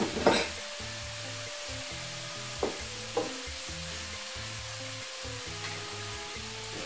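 Food frying in hot oil, with a steady sizzle and a few light utensil knocks near the start and about three seconds in as pieces are scooped out to drain.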